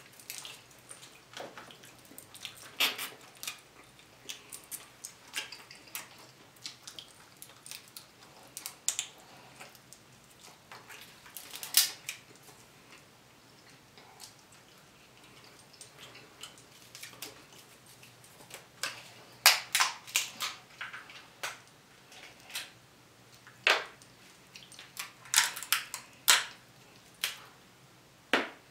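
Close-up eating sounds of crab legs: shell pieces cracking, meat being picked out and sucked from the shell, and wet mouth smacks. They come as irregular sharp clicks and crackles, loudest in clusters about two-thirds of the way through and again near the end.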